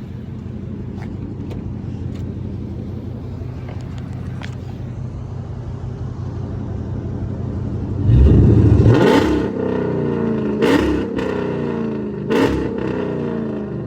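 Chrysler 300's engine idling through BBK long-tube headers, high-flow cats and an exhaust with no mid muffler, then revved hard about eight seconds in. Two shorter revs follow, and the pitch falls back toward idle after each.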